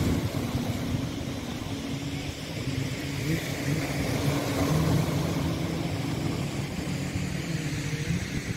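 Small sea waves splashing and washing against breakwater rocks, under a steady low engine hum from a motor nearby.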